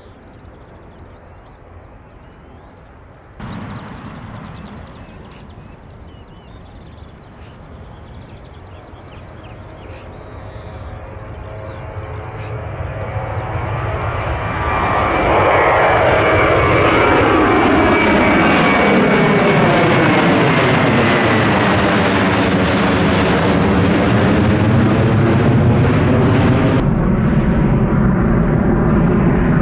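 Airbus A321-200 jet airliner taking off: its engines rise from a distant rumble to a loud steady jet noise over about six seconds, with a sweeping whooshing rasp as it passes and climbs away. Faint bird chirps sit under the quiet opening seconds.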